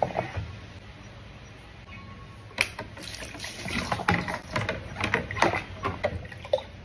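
Water splashing in short, irregular bursts, beginning a couple of seconds in after a quiet start.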